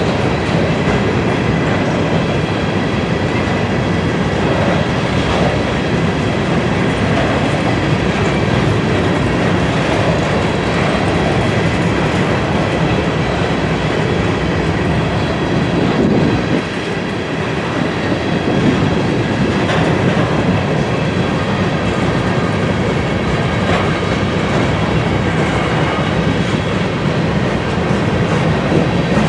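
Freight train of grain hopper cars rolling past, steel wheels running steadily on the rails, with a faint high ringing over the rumble. The sound eases briefly a little past halfway.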